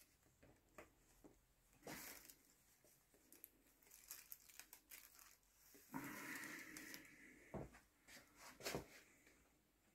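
Faint crinkling and rustling with a few small knocks and ticks from hands working at the joint. The longest crinkle comes about six seconds in and lasts a second and a half.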